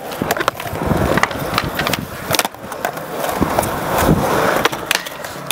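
Skateboard wheels rolling on concrete, broken by a series of sharp clacks from the board, with a brief lull about halfway through.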